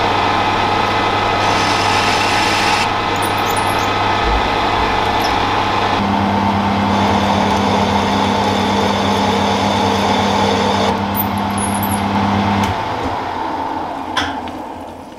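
Metal lathe running, its tool finishing a steel shaft. About thirteen seconds in the lathe is switched off and the spindle spins down, with a single click as it slows.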